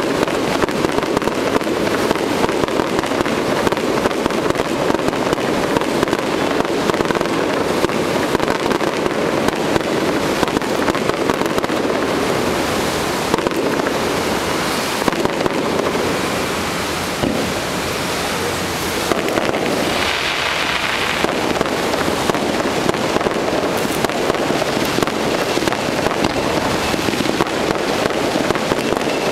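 Fireworks going off in a dense, rapid run of bangs and pops without a break, easing slightly a little past halfway before picking up again.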